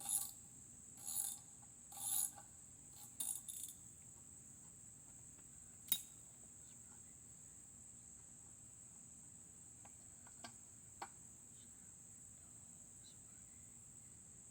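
Socket ratchet clicking in four short bursts about a second apart, then a single sharp click about six seconds in, as bolts come off a Briggs & Stratton Classic mower engine. A steady high-pitched drone of insects runs underneath.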